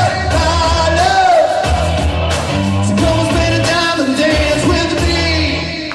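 Rock and roll song with a singer over bass and drums, loud throughout and dipping briefly near the end.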